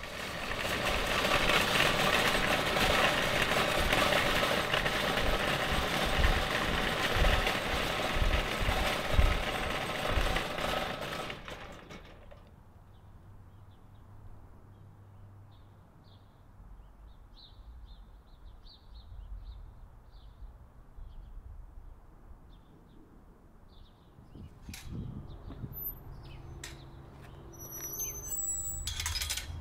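Loaded shopping cart rattling as it is pushed along a concrete sidewalk, its wire basket and wheels clattering with irregular thumps over the slabs, stopping about twelve seconds in. After that, small birds chirp, and near the end there are a few sharp metal clicks.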